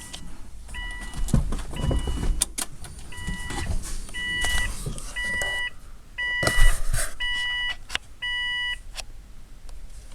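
A car's electronic warning chime beeping steadily, about nine even half-second beeps roughly once a second, stopping near the end, with scattered thumps and rustling of handling underneath; no engine is running.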